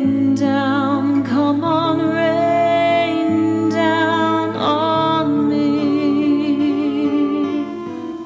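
Music: several sung voices holding long notes over a steady low note, the higher lines wavering with vibrato, with the chord shifting a few times.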